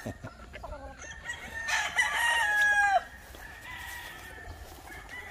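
A gamefowl rooster crows once, loudly, about two seconds in. The call holds a high pitch, then drops for its final part and stops abruptly. Fainter crowing and clucking from other roosters are heard around it.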